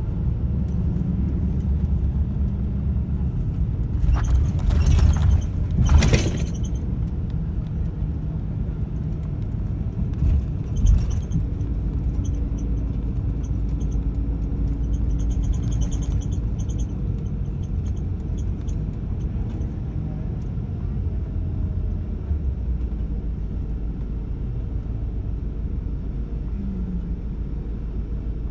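Shuttle bus driving through city streets, heard from inside: a steady low engine and road rumble, with loud rattling jolts about four to six seconds in and a shorter one about eleven seconds in.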